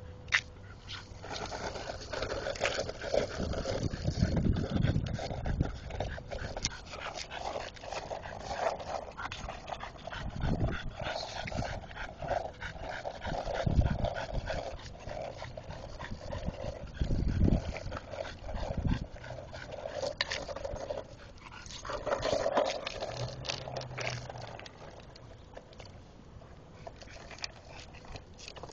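A bulldog panting as it rides a skateboard, with the board's wheels rolling and clicking over rough asphalt. The rolling gets quieter near the end.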